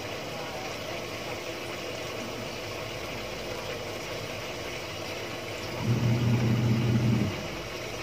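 Water pouring into the tub of a Samsung Wobble top-loading washing machine as it fills, a steady hiss. Near the end, the machine's motor hums for about a second and a half, then stops.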